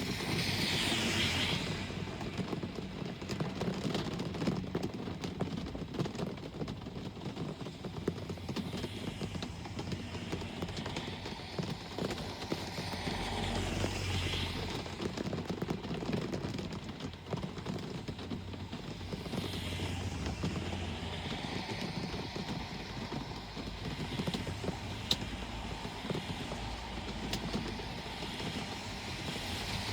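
Steady rain with road traffic: several vehicles pass one after another, each a swell of tyre hiss on the wet road and low engine hum that rises and fades, over scattered small ticks of falling drops.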